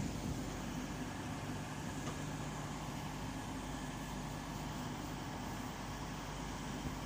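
Class 222 Meridian diesel multiple unit's underfloor diesel engines running steadily with an even, low hum.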